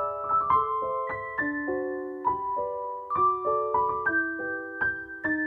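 Background piano music: single notes and chords struck a few times a second and left to ring as they fade.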